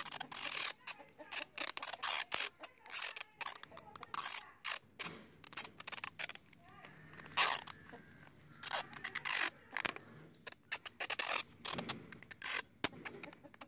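Clear adhesive tape being pulled off its roll in short, irregular rips, with thin plastic wrap crinkling as it is taped down.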